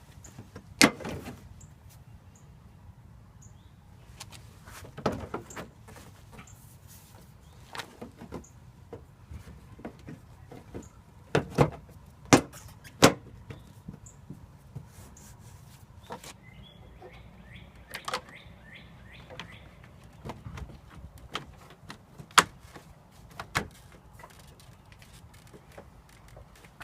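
Irregular sharp clicks and knocks, a dozen or so, of hand work on a car's front end, plastic trim and fasteners being handled and fitted; faint bird chirps in the middle.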